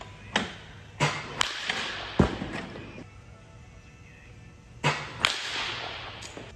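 Baseball bat striking pitched balls twice, each hit a sharp crack. The second crack follows another sharp knock less than half a second before it, and a duller thud comes about a second after the first hit.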